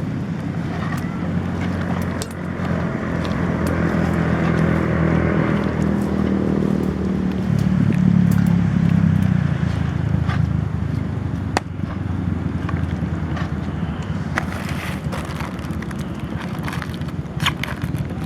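An engine running, its pitch shifting and growing louder toward the middle, then settling, with scattered sharp crackles and clicks.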